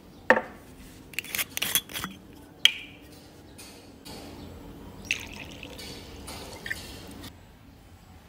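Liquor poured from a glass bottle into a small shot glass, a steady trickle lasting about three seconds. A few sharp glassy clinks and taps come before it as the glass and bottle are set on the wooden table.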